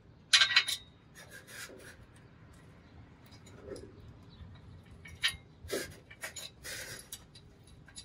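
CNT V3 exhaust pipe being forced and wiggled into place under the car: metal scrapes and clanks against the connection and hangers. The loudest clatter comes under a second in, with more scraping and knocks after the middle.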